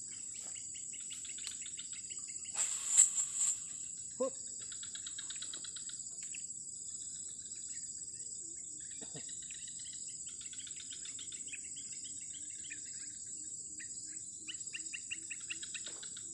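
Steady high-pitched insect drone with birds chirping over it, and a brief rushing noise about three seconds in.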